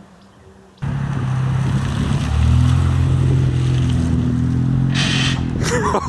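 Toyota Soarer's 1JZ-GTE turbocharged straight-six running as the car is driven; it cuts in suddenly about a second in and holds a fairly steady note, with a short hiss near the end.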